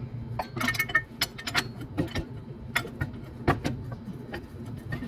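Irregular metallic clinks and knocks of tools and parts being handled, a dozen or so sharp hits scattered through, over a low steady hum.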